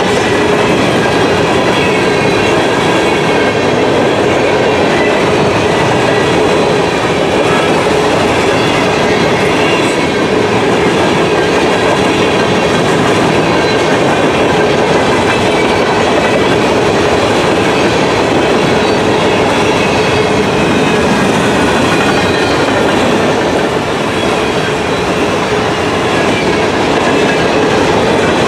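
Empty covered hopper cars of a freight train rolling past: a loud, steady rumble and clatter of steel wheels on rail.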